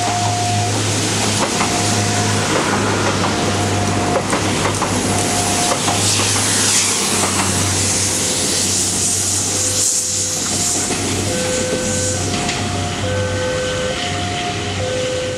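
Diesel commuter train running through the station: a steady low engine drone under continuous wheel-and-rail noise. Short two-note signal tones sound over it on and off.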